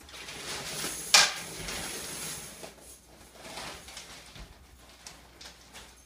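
Entries being stirred by hand inside a clear acrylic raffle drum: rustling and clattering against the plastic, with one sharp knock about a second in and a second burst of rummaging a little later.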